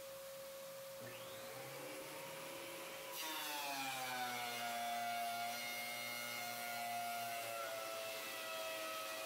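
Craftex CX125HC helical-head benchtop planer and its connected shop vac switched on about three seconds in, running idle with no board in it: a steady machine whine with a rush of air, its pitch settling after a brief slide.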